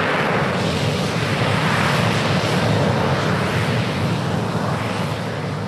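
Jet noise from a MiG-29's Klimov RD-33 turbofan engines, a steady loud rush that eases off slightly near the end.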